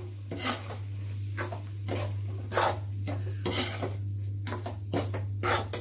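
Slotted metal spatula scraping and knocking against a metal pan while stirring coarse whole wheat flour in ghee, in short irregular strokes, over a steady low hum. This is the flour being turned as it starts to roast.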